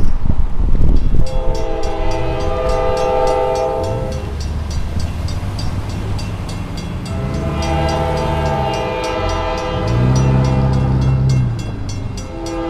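Norfolk Southern freight locomotive's air horn blowing its grade-crossing warning: two long chord blasts, a third starting near the end, while the train approaches unseen. The crossing's warning bell dings rapidly and steadily underneath, after a brief rush of noise in the first second.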